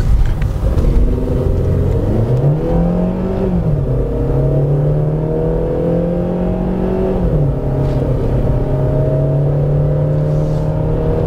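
Car engine heard from inside the cabin, pulling hard as the car speeds up on a track: its pitch climbs about two seconds in, drops back a second later, climbs again about six seconds in and eases off near seven and a half seconds, over a steady rumble of road and tyre noise.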